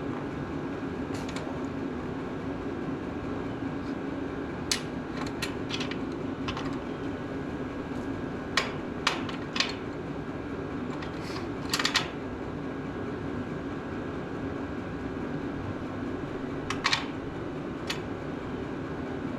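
Scattered sharp metallic clicks of hand tools and a bolt against metal while the starter's mounting bolt is being started into the Ford 8N's block, over a steady background hum. The clicks come singly and in small clusters, irregularly spaced.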